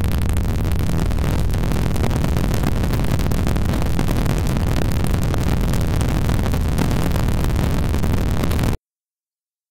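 Oscilloscope music: the stereo signal that draws the morphing green vector shapes on an XY oscilloscope, heard as a dense, harsh, buzzing electronic noise with a strong low end. It cuts off suddenly near the end.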